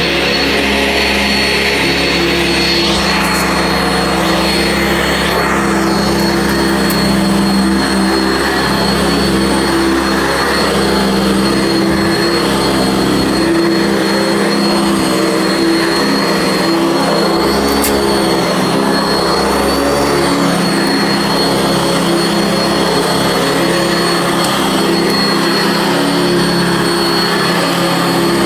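Sanitaire SC679 upright vacuum cleaner running steadily while being pushed over carpet: a constant rush of air with a steady high motor whine.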